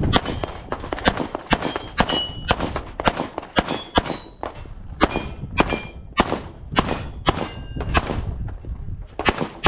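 Rapid pistol fire on steel targets: a quick string of shots, about two a second, many followed by the short metallic ring of a steel plate being hit.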